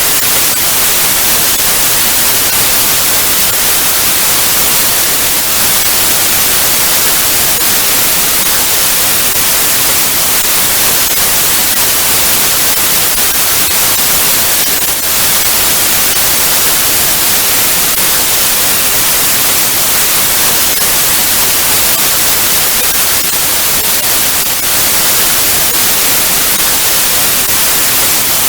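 Television static: a loud, steady hiss, brightest in the treble, with only brief slight flickers in level.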